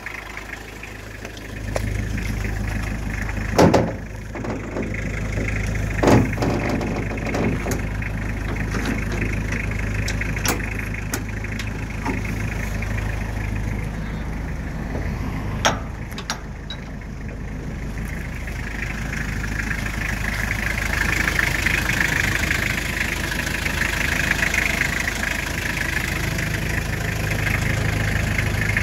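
Toyota Townace truck's 2-litre diesel engine idling steadily, louder from about two seconds in. A couple of sharp knocks come about four and six seconds in.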